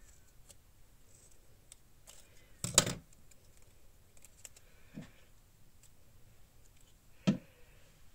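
Hands handling paper and craft items on a journal page: a short clatter about three seconds in, the loudest sound, a softer knock about five seconds in and a sharp knock near the end, with faint ticks and rustles between.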